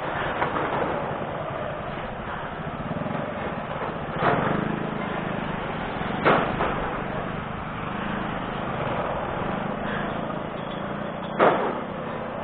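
Motorcycle engines idling in a slow queue, a steady low hum, with three short sharp knocks about four, six and eleven seconds in.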